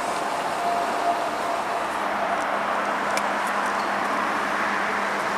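Electric passenger train approaching on the tracks: a steady rolling rumble at an even level.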